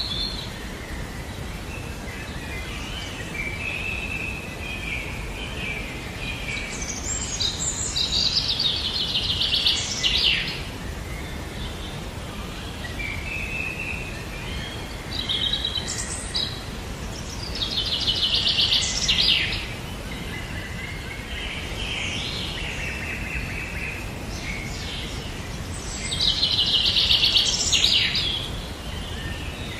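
Small songbirds singing: a bright trilling phrase comes three times, about eight to nine seconds apart, with quieter chirping between, over a steady background hiss.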